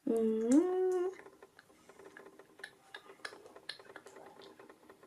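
A short pitched hum, about a second long, that glides upward and then holds, followed by faint scattered small ticks and clicks.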